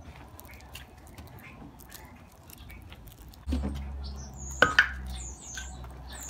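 Two sharp wooden knocks close together, about two-thirds of the way in, as two wooden pestles are clacked together. A few short high bird chirps and a low rumble start shortly before the knocks.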